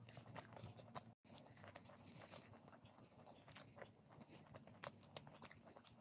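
Close-up chewing and biting of crisp fried food, with irregular small crunches and wet mouth sounds, faint. The sound drops out for an instant about a second in.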